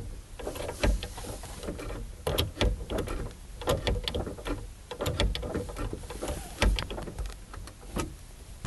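Irregular light clicks, taps and knocks of hands and parts moving about a DeLorean's door lock mechanism, a few a second with no steady rhythm.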